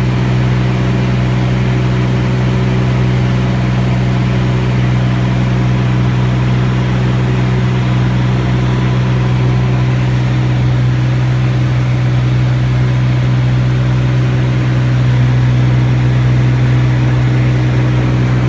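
A loud, steady engine drone: a low hum with overtones that holds one pitch and level throughout, without rising or falling.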